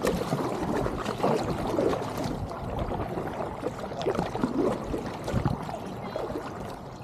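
Kayak paddle strokes: water splashing and pouring off the paddle blades, with irregular dripping and trickling.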